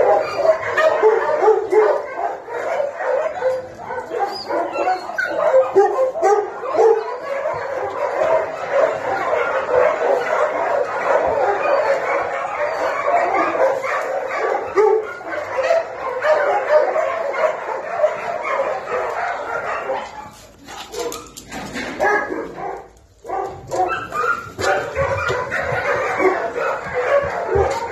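Many kennelled dogs barking and yapping at once, a dense continuous chorus of overlapping barks. It thins out briefly about three quarters of the way through, then picks up again.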